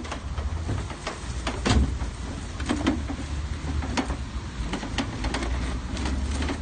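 A metal shopping trolley loaded with a scrap bicycle is wheeled and handled, rattling and clanking in irregular knocks over a steady low rumble.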